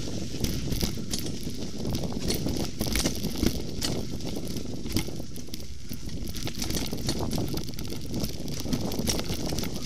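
Mountain bike riding fast down a dirt trail: a steady low rumble of tyres and air noise, with frequent rattling clicks and knocks as the bike bounces over the rough ground.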